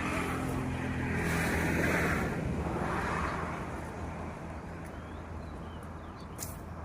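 A motor vehicle passing by: a low engine hum with the rush of its passing swelling to a peak about two seconds in, then fading away. A few light clicks near the end.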